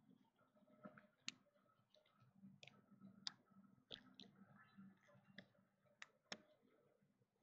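Faint, irregular clicks and taps, about seven over several seconds, against near silence.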